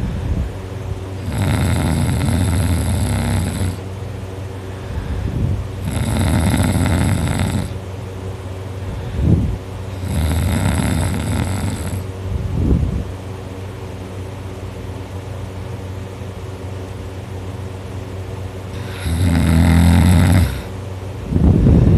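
A teenager snoring very loudly in deep sleep, one rough snore about every four seconds. After the third snore there is a lull of about six seconds before the snoring picks up again.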